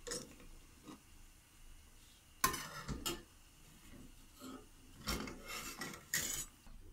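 Metal slotted spoon scraping and clinking against a stainless steel saucepan as quail eggs are lowered into the water: a few short, separate scrapes and knocks.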